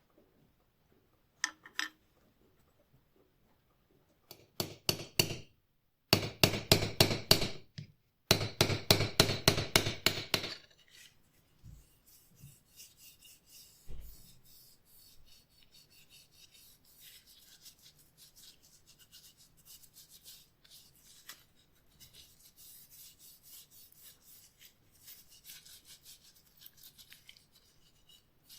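Metal being scraped by hand in quick back-and-forth strokes, several a second. This is rust removal on an old steel tool part. The strokes are loud for about six seconds, then go on fainter and lighter through the rest.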